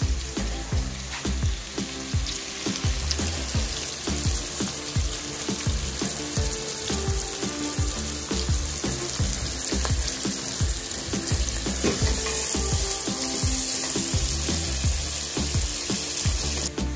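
Sliced onions sizzling as they fry in oil in a nonstick pan, a dense steady hiss that stops abruptly near the end. Background music plays underneath.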